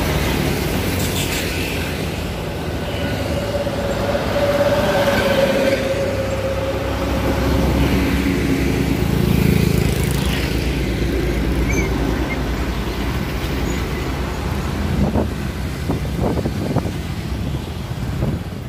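Traffic on a busy road: heavy diesel cargo trucks and motorcycles passing close by, engines running steadily, with a steady higher tone for a few seconds about three seconds in.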